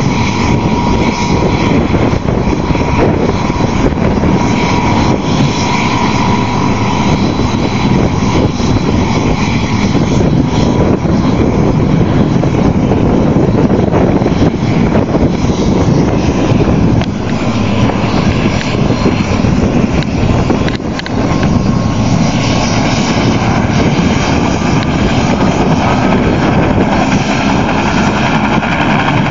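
Air ambulance helicopter running loud and close, a steady engine noise with a high whine over it.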